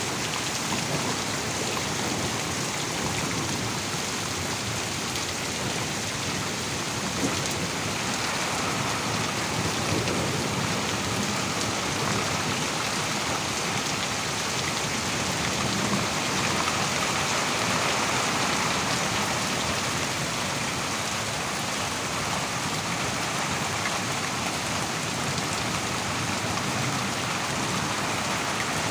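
Heavy rain pouring down steadily, an even hiss of a downpour.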